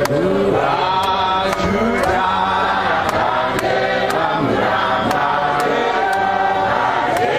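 Group of voices chanting a hymn together in harmony, unaccompanied, with a sharp click keeping time about twice a second.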